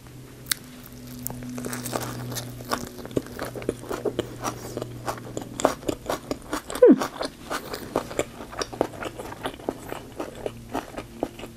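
Close-up chewing of a Vietnamese fresh spring roll in rice paper with lettuce: wet crunching with several short clicks a second. A short falling sound, the loudest moment, comes about seven seconds in.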